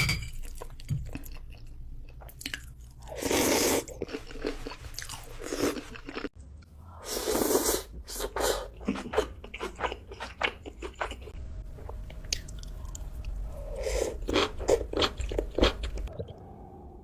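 AI-generated mukbang eating sounds: close-up crunchy bites and chewing. Loud crunching bites come about three and seven seconds in, with a quick run of crunches near the end.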